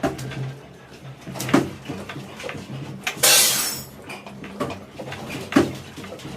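Irregular knocks and clatter of dishes and household objects, with a short, loud crashing noise about three seconds in, over a steady low hum.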